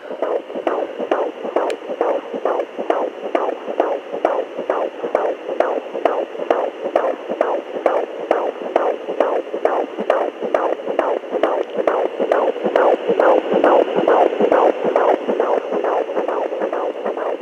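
Fetal heartbeat through the speaker of a Sonoline pocket fetal Doppler, picked up from the belly of a woman nearly five months pregnant: fast, even whooshing pulses, about two to three a second, over a steady electronic hiss.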